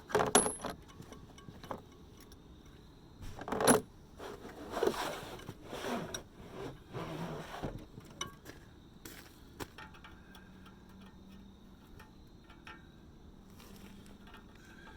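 Loose metal sockets and tools clinking and rattling as someone rummages through them. There are two sharp clanks, one right at the start and one about three and a half seconds in, then a few seconds of irregular rattling, then fainter scattered clicks.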